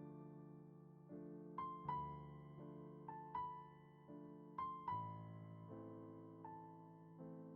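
Slow, soft keyboard music in the manner of a piano: held chords under a simple high melody, its notes struck in pairs about every second and a half, each fading away after it is struck.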